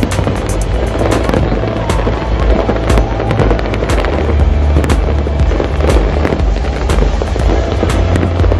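Large fireworks display: shells bursting in a rapid, irregular run of sharp bangs and crackles, a loud report every second or so over a dense crackling haze.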